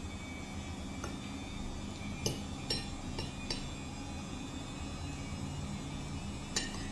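A metal fork clinking against a plate, about six short, light clinks spaced unevenly. A steady low hum runs underneath.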